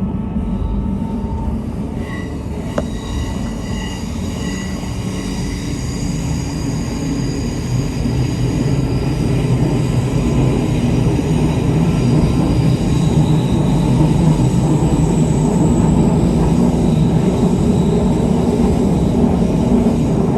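A train running past close by, rumbling louder over the first half, with thin high-pitched wheel squeal tones coming and going.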